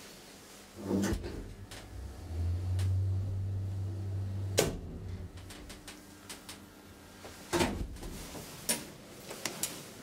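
1968 Kone traction elevator: a low steady hum from the car for a few seconds, ending in a sharp clunk as it stops. Then several knocks and clicks as the car's doors are opened.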